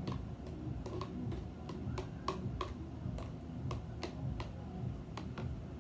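Fizzing slime mixture crackling faintly: irregular small clicks and pops, about three or four a second.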